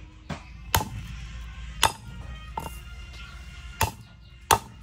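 Kitchen utensils clinking against dishes: about six sharp, ringing clinks at uneven intervals.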